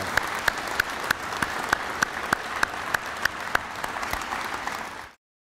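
An audience applauding, with one pair of hands close by clapping about three times a second. The applause cuts off suddenly near the end.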